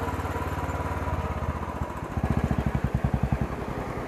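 Motorcycle engine running with an even, rapid pulse. About two seconds in, the pulsing grows louder and more marked for a second or so, then settles back.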